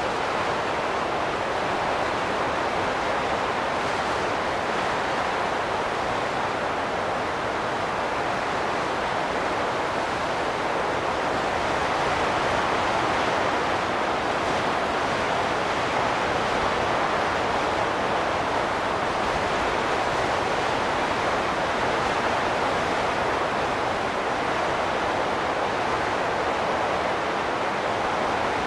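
Wind blowing steadily as a dense rushing noise, swelling and easing slightly in slow gusts.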